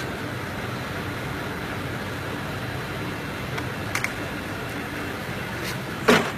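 A steady mechanical background hum runs throughout, with a couple of light clicks about four seconds in. Near the end comes one short, sharp yelp from a dog, the loudest sound.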